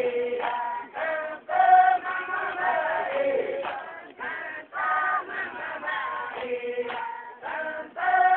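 A group of voices chanting together in short, repeated sung phrases with brief breaks between them.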